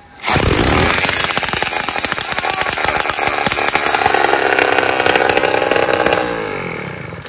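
Small four-stroke engine on a motorised bicycle firing on its first start, cranked over with an electric drill. It runs for about six seconds, then slows with a falling pitch and dies away near the end.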